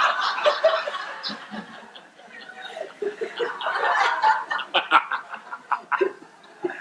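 Congregation laughing at a joke, a crowd of chuckles that swells at the start and again midway.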